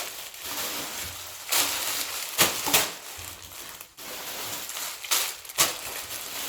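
Plastic packaging rustling and crinkling as clothes are handled and unwrapped, with several sharper crackles.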